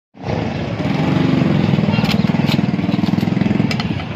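A small engine running steadily and loudly, cutting in abruptly just after a brief silence, with a few light clicks on top.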